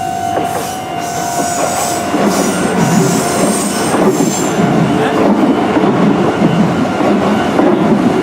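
A Kintetsu Nagano Line train passing, its wheels squealing on the rails; the rumble grows louder from about two seconds in.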